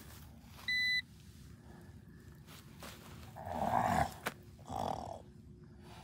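A short electronic beep about a second in, then growling roars, the loudest just before four seconds and a shorter one about a second later.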